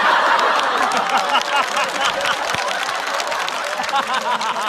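Studio audience laughing and clapping at a punchline, many voices at once with scattered claps, easing off toward the end.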